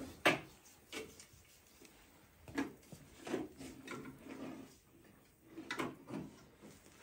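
Scattered quiet clicks and knocks of a kitchen knife and hands working raw meat over a steel bowl, the sharpest knock about a third of a second in.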